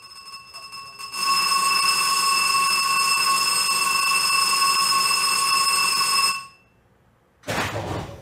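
Shipboard warning alarm ringing steadily for about five seconds beside a triple torpedo tube mount, then cutting off abruptly. After a second's pause, a short rush of mechanical noise as the tube mount begins to move.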